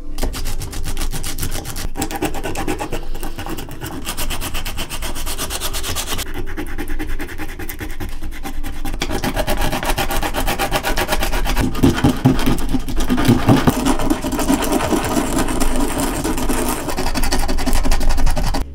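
Coarse 40-grit sandpaper rubbed rapidly back and forth by hand over a holly-wood wand, a fast rasping scratch that grows louder toward the end.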